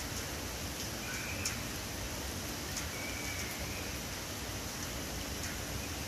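Steady rain falling through the forest, with scattered drips ticking. A bird calls faintly twice, briefly each time.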